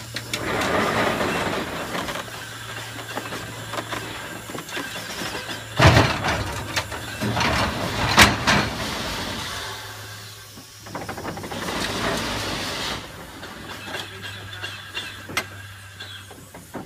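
Erie steam shovel at work: steam hissing in surges over the clatter of its machinery, with two loud metallic clanks about six and eight seconds in. A steady low hum runs underneath.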